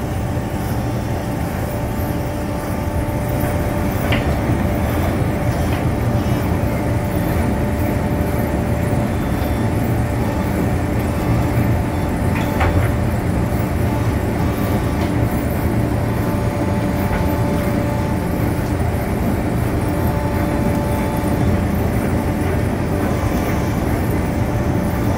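Engine of a truck-mounted timber loader crane running steadily while it drives the crane's hydraulics, a constant low drone with a few held pitches over it. Two faint clicks stand out, one a few seconds in and one about halfway through.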